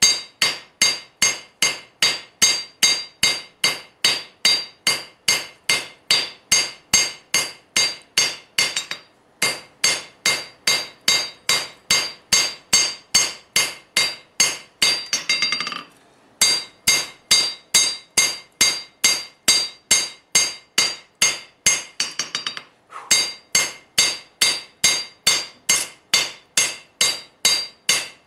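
Two-pound rounding hammer striking a red-hot steel froe blade on an anvil, about two to three ringing blows a second, drawing the blade out for width. The hammering stops briefly three times, with a flurry of quicker light taps just before two of the stops.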